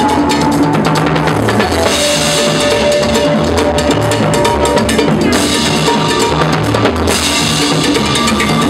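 Timbales played with sticks in a fast, busy Latin pattern of strikes on the heads and rims, with the rest of the band, including a low bass line, playing underneath.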